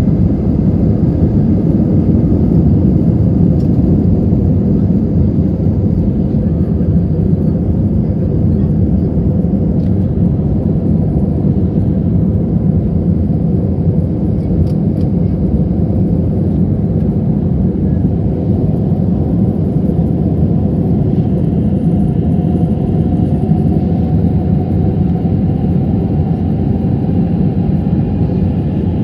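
Inside the cabin of an Airbus A319 at takeoff thrust: the steady, loud rumble of the jet engines and rushing air through liftoff and climb-out. A faint whine rising slowly in pitch joins in near the end.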